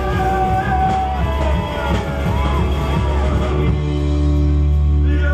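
Live band music: a rock band playing a song. About two-thirds of the way through, a low chord is held steadily.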